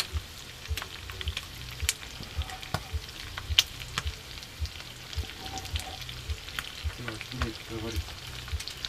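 Chopped carrots and onions sizzling as they fry in a frying pan, stirred by hand, with scattered sharp clicks of the stirring against the pan over a steady hiss.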